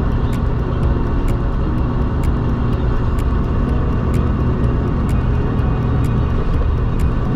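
Haul truck driving on the road: a steady low engine and road rumble, with a faint tick about once a second.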